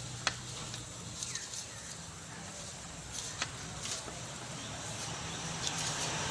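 Egg-and-flour dough balls frying in a pan of oil, a steady faint sizzle, with a few sharp clicks of wooden chopsticks against a plate, the loudest about a quarter-second in and again near the middle.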